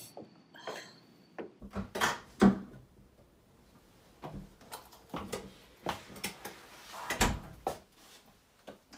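Clicks and knocks from an apartment's front door being shut and locked with a key, in a small entryway. The loudest knocks come about two and a half seconds in and about seven seconds in.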